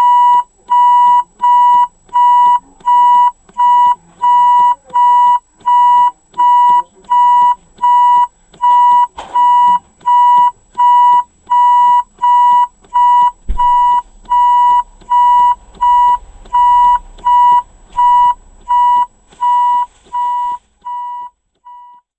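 Ford Fiesta's reverse warning beeper sounding a steady, even beep about one and a half times a second. A click about nine seconds in and a low thump about thirteen seconds in, followed by a low rumble. The beeps fade over the last couple of seconds and stop.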